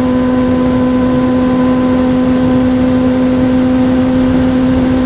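Vehicle running at a steady speed: a constant, unchanging hum of engine and drivetrain over loud road and wind noise.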